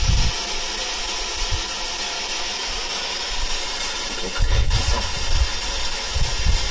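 Steady, loud hiss with low, muffled bumps at the start and again several times in the second half.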